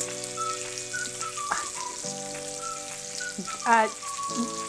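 Bacon sizzling on an electric indoor grill, a steady high hiss under background music of held chords with a light melody. A brief gliding voice sound, like an appreciative 'mmm', comes about three-quarters of the way through and is the loudest moment.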